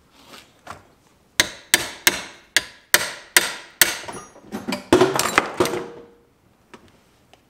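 About ten sharp metal blows, a hammer striking a wrench on the rusted nut of a tractor tie rod end held in a bench vise, each blow ringing briefly, the last few coming closer together. The blows are to break the seized nut loose.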